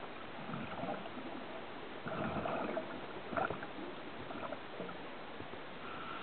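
Scuba diver's breathing heard underwater: bubbly bursts of exhaled air from the regulator, strongest from about two to three and a half seconds in, over a steady hiss.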